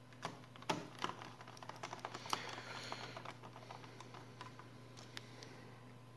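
Small plastic clicks and taps, with a denser stretch of quick scratchy clicking in the middle: a small screwdriver driving screws into the plastic underside of a Sony Vaio laptop.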